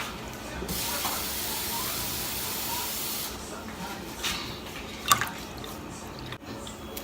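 Water poured from a cup into a pan on the stove, a steady hiss for about two and a half seconds that stops abruptly, followed by a few light knocks.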